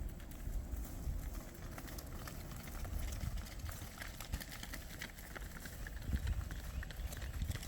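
Cattle walking past, their hooves giving scattered irregular clicks and clops over a low steady rumble.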